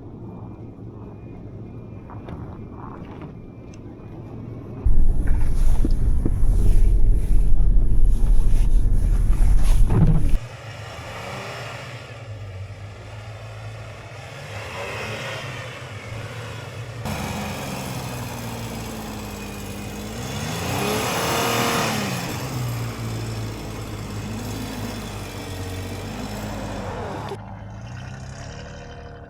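A 4WD's engine revving as the car forces its way through deep snow to break a track on the road. There is a very loud stretch from about five to ten seconds in, and later the engine pitch rises and falls several times.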